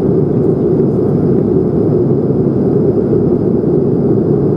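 Steady cabin noise inside an Airbus A220-100 in flight: an even, deep rush of airflow and its Pratt & Whitney PW1500G geared turbofan engines, with a faint high steady whine above it.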